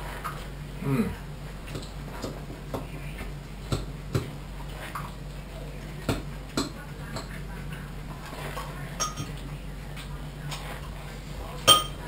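Scattered light clicks and clinks of small hard objects being handled on a desk, with one louder clink near the end, over a steady low hum.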